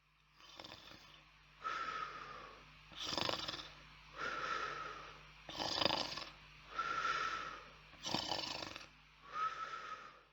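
A person snoring: slow, rough snoring breaths, about four cycles, each followed by a longer out-breath with a thin whistle.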